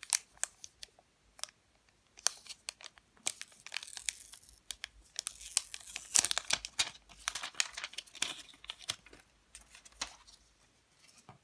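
Thin plastic packaging crinkling and tearing as it is handled, in quick irregular crackles and rustles that die away about ten seconds in.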